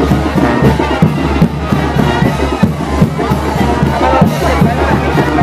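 Brass band playing chinelo dance music over a steady, driving drum beat.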